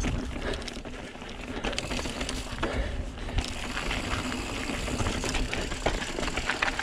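Santa Cruz Megatower enduro mountain bike rolling fast down a dirt and gravel singletrack: knobby tyres crunching over the trail with a steady low rumble, and the chain and frame rattling and clicking over bumps.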